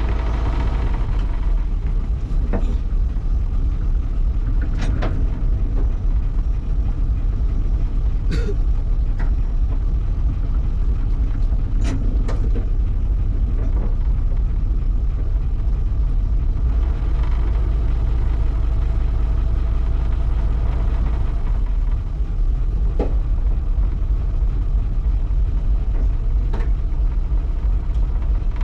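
River taxi boat's engine running steadily under way, a continuous low rumble heard from on board, with a few short sharp knocks scattered through it.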